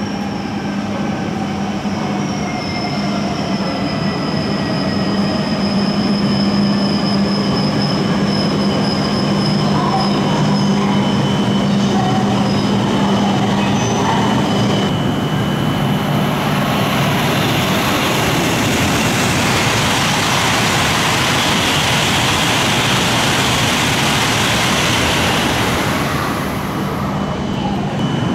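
E5 series Shinkansen bullet train pulling in and slowing almost to a stop. For the first half its electric drive gives a whine that slowly falls in pitch over the rolling noise. A steady hiss then takes over as the cars run past and fades near the end.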